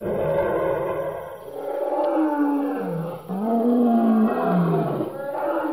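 Dinosaur roar sound effects: several long roars, one after another, whose pitch slides down and back up, starting abruptly.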